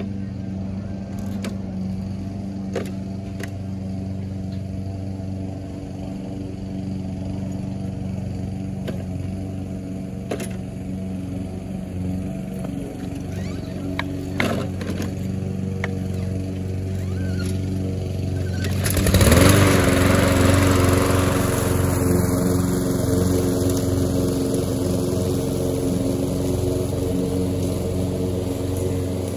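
Small gasoline engine of a walk-behind lawn mower running steadily, with a few light knocks. About 19 seconds in, a louder rushing engine noise swells in with a rising tone and stays.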